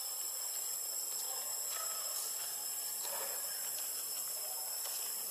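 Steady high hiss with two thin high whines held throughout, and a few faint soft clicks scattered through it.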